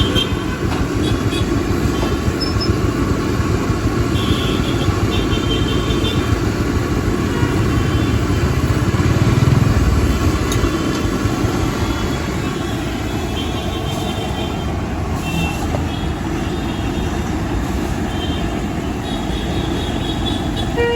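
Steady street traffic rumbling, swelling louder around the middle as a vehicle passes close by, with a few faint high tones over it.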